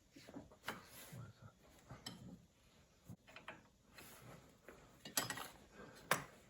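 Hands working small metal fittings on an air compressor's airline: irregular scraping, rattling and clicks, with two sharper knocks near the end.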